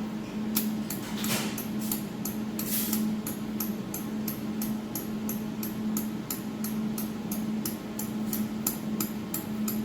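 Adjustment knob on a laser welder clicking as it is turned by hand, about three even clicks a second, with a brief rubbing sound near the start. A steady hum from the machine's built-in chiller runs underneath.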